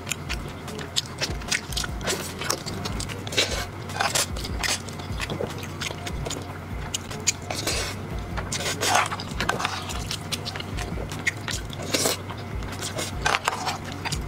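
Close-miked eating sounds: wet chewing and lip smacking on braised pork knuckle with rice and sweet-potato noodles, with a slurp about eight seconds in.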